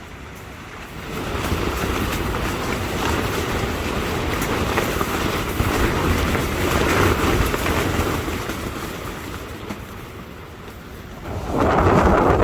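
Strong gusting wind: a rushing noise with a heavy low rumble that swells about a second in, eases for a few seconds, then surges again with a fresh gust near the end.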